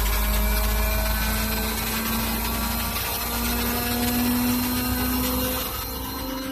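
Belt-driven 30 kW variable-speed-drive air compressor running on test: a steady low rumble with a whine on top that steps up in pitch a few times as the drive raises the motor speed.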